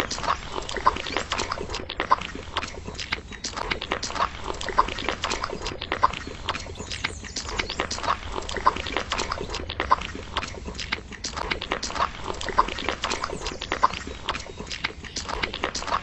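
Small steel hand trowel scraping and smoothing wet cement, a continuous run of gritty strokes at about two a second.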